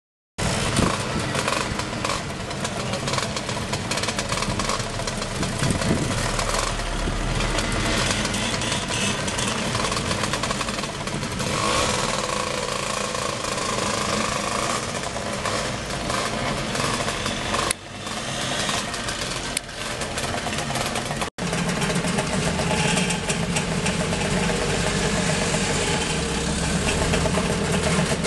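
A pack of vintage two-stroke scooters, Vespas among them, running and moving off together, many small engines at once. After a sudden break a little past two-thirds through, scooter engines idle and blip close by.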